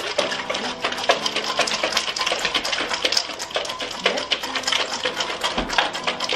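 A glass jar shaken hard by hand as a makeshift cocktail shaker, the ice inside rattling in a fast, steady run of clicks while a margarita is mixed.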